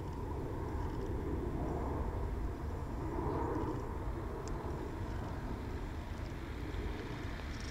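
Airbus A321 airliner's jet engines running as it rolls along the runway for takeoff: a steady deep rumble that swells a little partway through.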